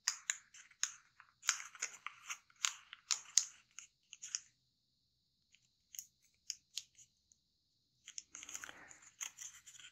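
Thin kami origami paper being folded and creased by hand: short crinkles and rustles, busy in the first few seconds, only a few single crackles in the middle, then another run of rustling near the end.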